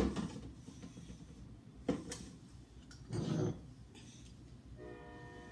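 Condiment bottles and jars being handled and set down in a refrigerator: a sharp clunk at the start, another about two seconds in, and a short rattle a little after three seconds. A steady hum with several tones starts near the end.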